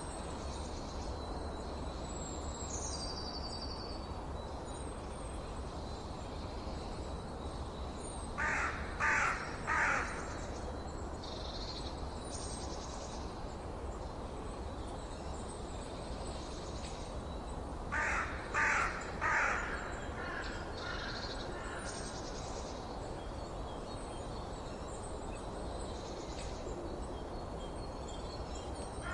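A bird cawing in two series of three calls, about ten seconds apart, over small birds chirping high and a steady background hiss.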